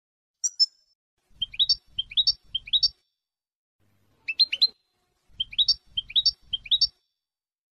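European goldfinch song in the 'wdania' style, from a song recording: a high sharp note about half a second in, then three quick rising chirps about half a second apart, a single stronger call near the middle, and another three rising chirps.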